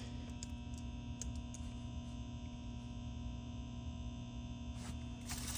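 Refrigerator compressor running with a steady hum and tone after clicking on. It is hot and only managing short runs before cutting out, which the technician takes for a bad start relay.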